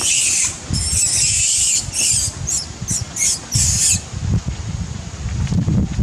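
Macaque giving a series of high-pitched shrieks: two long ones, then a run of shorter, choppier ones that stop about four seconds in. Low rustling and thumps follow.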